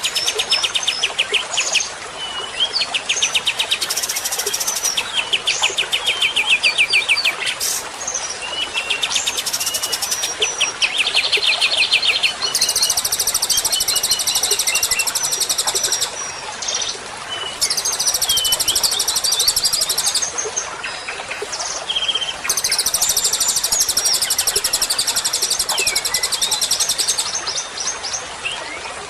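Songbird song from a masteran track used to teach white-rumped shamas. It opens with fast, chattering trills and short whistled notes. From about halfway, three runs of very high, rapid trilling of a few seconds each follow, with short notes between them.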